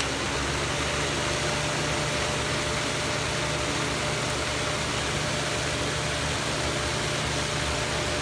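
20-inch electric fan set into a plywood attic-hatch panel as a whole house fan, running steadily: an even rush of air with a low hum and a thin constant whine.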